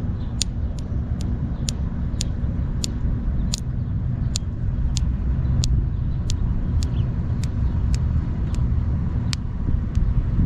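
A thumb joint being cracked repeatedly: sharp, brief pops at an uneven pace of about one or two a second. Under them runs a steady low rumble, like a vehicle's running noise.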